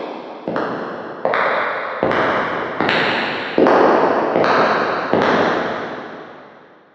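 Footsteps at a steady walking pace, about one step every three-quarters of a second, each step followed by a long echoing decay. The steps grow louder, and the last one, about five seconds in, dies away.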